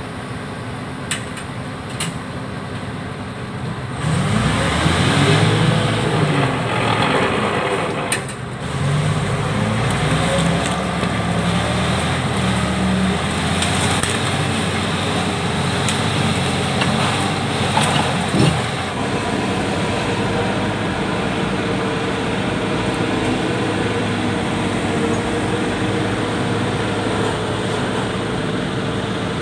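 Heavy earthmoving machine's diesel engine running, revving up under load about four seconds in with the pitch rising and falling for several seconds, then settling into a steady drone. A few short sharp knocks stand out along the way.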